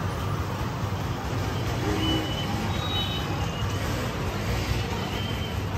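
Steady low rumble of road traffic, with a few faint short high-pitched tones like distant horns.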